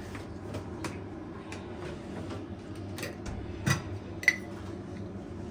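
Light kitchen clatter: scattered clicks and knocks of crockery and utensils over a steady low hum, with a knock and then one sharp ringing clink, the loudest sound, a little after halfway.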